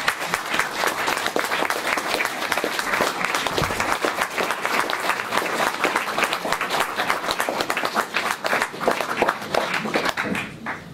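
Audience applauding, a dense patter of many hands clapping, steady throughout and dying away near the end.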